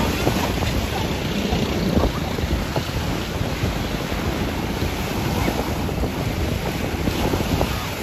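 Small waves breaking and washing up the shore in the shallows, with wind buffeting the microphone.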